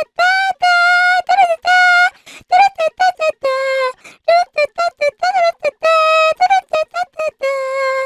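The anime girl meme sound: a high-pitched, cartoonish girl's voice singing quick runs of short staccato notes, broken by a few long held notes.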